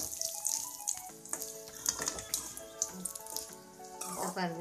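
Curry leaves and dried red chillies sizzling in hot oil in a steel pot, with a spoon clicking against the pot as it stirs, over background music.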